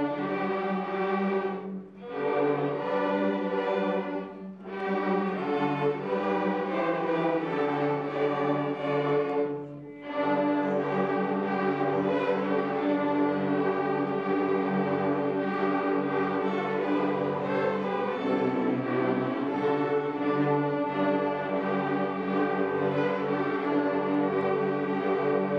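Student string orchestra of violins and cellos playing, with three brief pauses between phrases in the first ten seconds, then playing on without a break.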